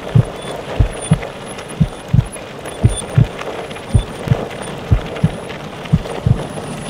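Heartbeat sound: low thumps in lub-dub pairs, about one pair a second, steady and regular over a constant hiss-like bed, with faint short high tones now and then.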